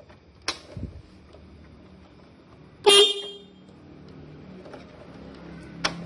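Motorcycle's aftermarket Denso horn, wired through a Bosch four-pin relay, gives one short loud beep about three seconds in. Sharp clicks come about half a second in and again near the end.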